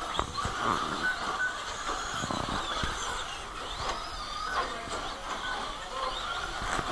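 Several Traxxas Slash radio-controlled short-course trucks racing: their electric motors whine, rising and falling in pitch as the trucks speed up and slow down. A few sharp knocks come near the start and again about two and a half seconds in.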